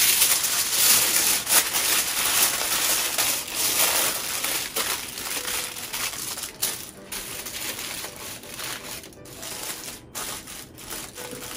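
Aluminium foil crinkling and crumpling as it is handled and folded around racks of ribs, in a continuous irregular crackle that is loudest in the first few seconds and softer later.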